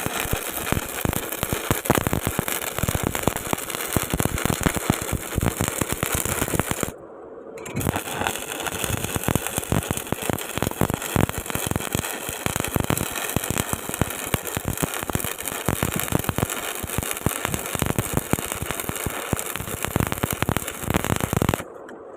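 Stick (arc) welding: the electrode's arc crackling and spitting steadily, broken off briefly about seven seconds in, then struck again and run until it stops abruptly near the end.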